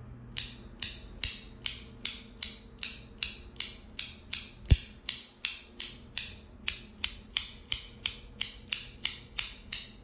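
NJT Handpower Ulte haptic fidget coin in BaskuTi Weave, worked with the thumb so its halves snap over: a steady run of about two dozen sharp metallic clicks, roughly two and a half a second, each with a brief ring, with one louder click about halfway through.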